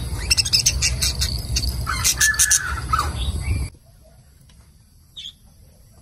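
Budgerigars chirping and chattering in quick, high calls over a low rumble. A little past halfway the sound drops suddenly to faint, with a single soft chirp after.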